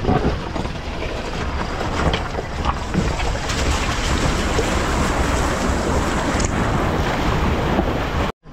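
Heavy wind buffeting the microphone of a camera on a moving safari jeep, over the low rumble of the engine and tyres on a dirt track, with a few faint knocks.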